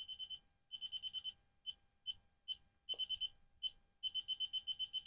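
Laser distance measure in continuous measure mode beeping as it is slid along to take new readings: short high beeps, some single and some in quick runs of about nine a second, becoming an unbroken run from about four seconds in. A faint tick about three seconds in.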